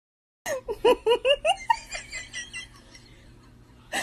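A person giggling in a high voice: a quick run of short laughs starting about half a second in, trailing off after a couple of seconds into faint room noise.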